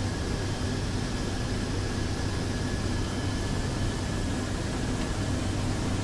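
Steady drone of a four-engine turboprop military transport aircraft heard from inside the cockpit, a constant low hum under broad engine and airflow noise.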